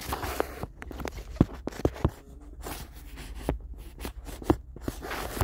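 Hands working in a car's plastic dash trim and cabin filter housing: scattered clicks and knocks of plastic, with a few short bursts of rustling and scraping.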